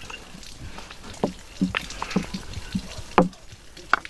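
Metal spoon scraping and knocking against a plastic bowl while scooping minced-meat filling: a series of short, irregular clicks and taps, about seven in all.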